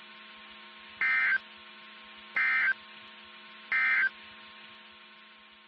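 Emergency Alert System end-of-message data bursts: three short, buzzy two-tone chirps about a second and a half apart, signalling the end of the alert. They sound over a steady low hum of broadcast background that fades away near the end.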